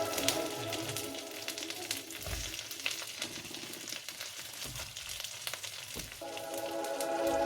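Food sizzling and crackling as it fries in hot fat in a frying pan, with scattered sharp pops.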